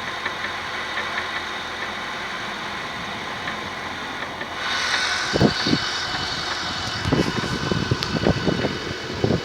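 Honda Stream's R20A four-cylinder engine idling after a cold start: the engine whose rapid ticking the owner complains of when cold. About five seconds in, a louder hiss joins, followed by a series of irregular low thumps.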